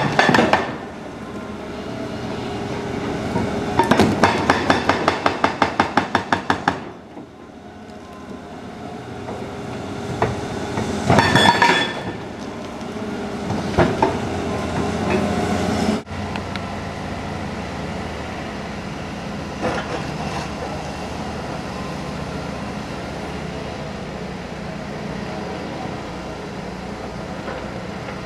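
Heavy machinery breaking up concrete: a rapid run of hammer blows, about seven a second for nearly three seconds, then a few loud clanks and a steady engine running.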